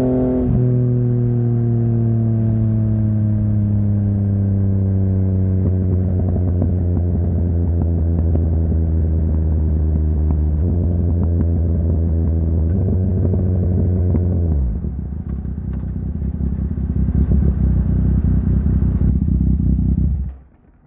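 2020 Yamaha MT-09's 847 cc inline-triple engine, breathing through a Barker full exhaust system, slowing down with its pitch falling steadily. The pitch steps up twice as it is shifted down, and the engine drops to a rough idle about two-thirds of the way in. It is switched off near the end and cuts out abruptly.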